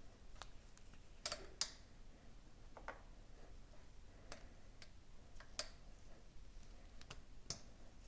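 Faint, irregular clicks and light metallic taps from hand tools and small engine parts being handled during engine work, with the two loudest clicks in quick succession a little over a second in.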